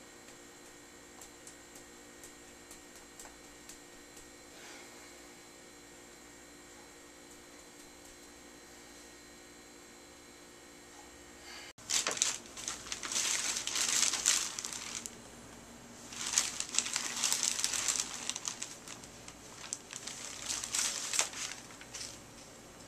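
Faint room hum, then about halfway through a cat rummaging in a plastic shopping bag and loose papers: loud crinkling and rustling in three stretches of a few seconds each.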